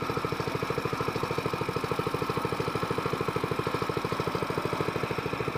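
Small gasoline outboard motor pushing a jon boat along at low speed, running with a steady, rapid putter.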